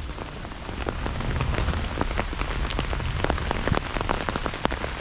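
Heavy rain falling, a steady hiss with many separate drops striking close by.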